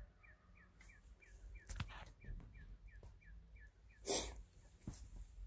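An animal's short, high chirps repeating about three times a second, stopping about four seconds in, followed by one short, sharp breathy burst, the loudest sound here.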